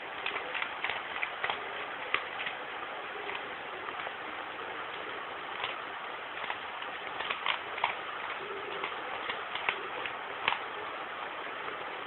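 Plastic clicking and clacking of a 3x3 Rubik's cube as its layers are turned quickly, in irregular runs of sharp clicks over a steady background hiss.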